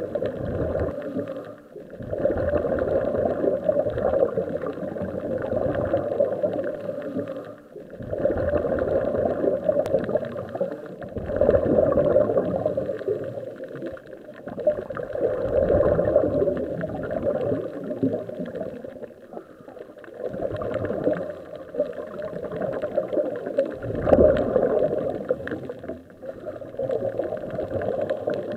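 Scuba diver breathing through a regulator, heard underwater: bubbling exhalations that swell and fade about every six seconds, with brief lulls between breaths.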